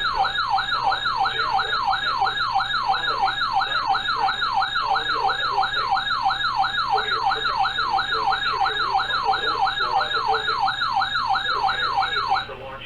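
Weather radio's warbling siren alert sounding for a new severe thunderstorm warning, sweeping up and down about three times a second before cutting off sharply near the end, over a faint low hum.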